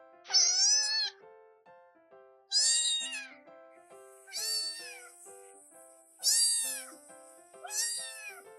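A domestic cat meowing five times, each call about a second long and rising then falling in pitch, over soft background music.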